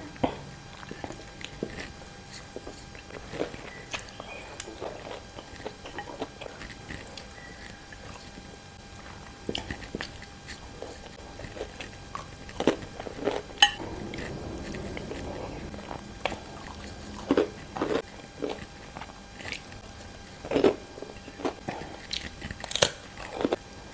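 Close-up eating sounds from a clip-on microphone: a woman chewing rice and jengkol by hand, with wet mouth clicks. A few louder crunches come in the second half, among them bites of a fried cracker.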